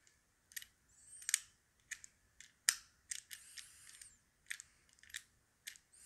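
About a dozen faint, irregular metal clicks and light scrapes as a steel pick, pushed in beside the shackle of a Master Lock No. 5 padlock, works the latch aside and releases the shackle without the key: a latch bypass.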